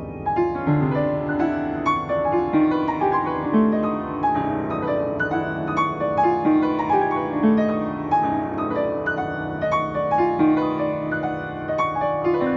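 Upright piano played continuously: a dense stream of overlapping notes in the middle and upper range over a held low note, with frequent sharp key strikes.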